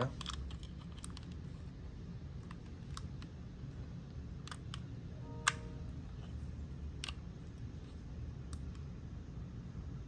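Scattered light clicks of buttons being pressed on the Majestic IQ-9000 power wheelchair's handheld remote while it is paired to the chair over Bluetooth, with one short electronic beep about five and a half seconds in.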